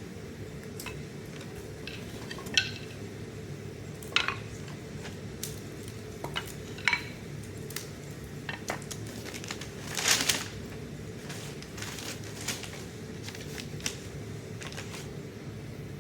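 Steel blacksmithing hammer heads clinking and knocking as they are handled and set down, a handful of separate metallic clinks with a longer scrape about ten seconds in.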